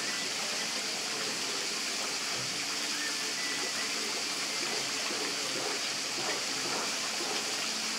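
A steady, even rushing hiss that does not change, weighted toward the high end, like running or gushing water.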